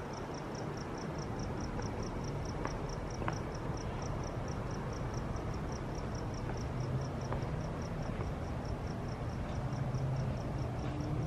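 A cricket chirping steadily, about four chirps a second, over a low steady background hum.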